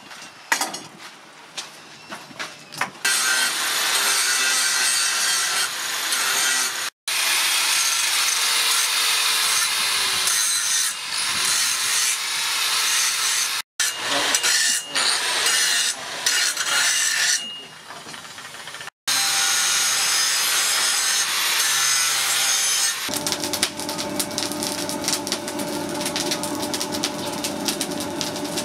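Angle grinder grinding the steel blade of a hand-forged knife, a dense rasping grind in long stretches that break off abruptly several times. A few short scraping strokes come before it, and near the end a steadier humming sound with a fine regular ticking takes over.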